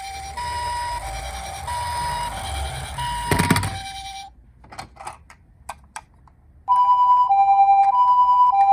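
Toy ambulance's two-tone siren alternating high and low notes in the Japanese 'pee-po' pattern, over a low rumble, with a loud knock about three and a half seconds in. The siren stops for a couple of seconds of scattered clicks and knocks, then starts again louder near the end.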